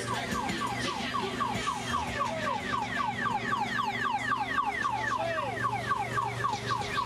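Electronic siren of a kiddie fire-truck ride, sounding as a fast yelp: falling chirps at about four a second, repeating evenly over a steady low hum.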